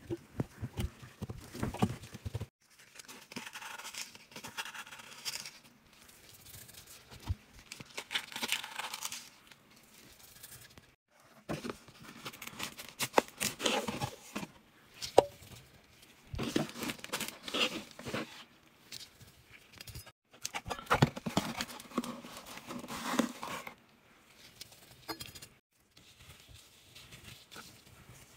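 Powdered laundry detergent being poured and scooped onto clothes in a washing machine drum, with fabric rustling and a gloved hand rubbing the powder into the laundry. It comes in several separate bursts of pouring and scraping with short breaks between them.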